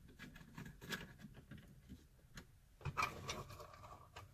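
Faint clicking and rubbing of screws being driven to fasten a car radio into its dash bracket. There is a louder knock about three seconds in.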